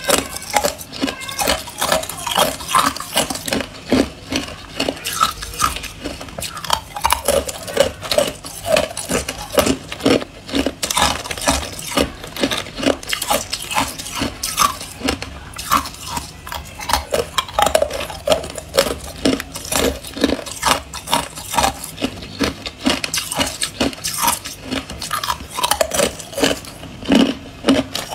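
Clear ice cubes being bitten and crunched between the teeth: a dense, irregular run of sharp cracks and crunches, several a second. Near the end, loose cubes clink and a plastic bag rustles as a hand reaches in for more ice.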